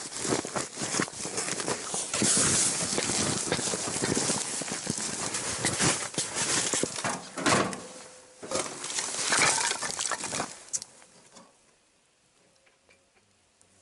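Rustling and scraping of clothing and tent fabric with scattered knocks as someone moves about inside an ice-fishing tent. It stops about eleven seconds in.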